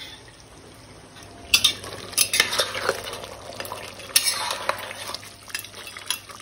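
A spatula stirring and scraping thick mutton curry in a hard-anodised pot, with clinks against the pot's side, starting about a second and a half in.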